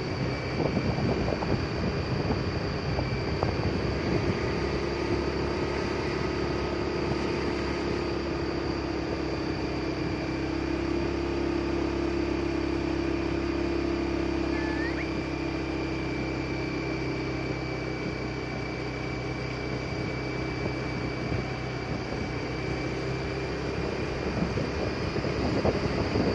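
A vehicle's engine running steadily at cruising speed, with road and wind noise. Wind buffets the microphone near the start and again near the end.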